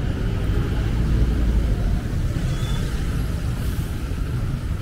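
Busy street traffic: vehicle engines running with a steady low rumble, heaviest in the first two seconds, as a bus passes close by.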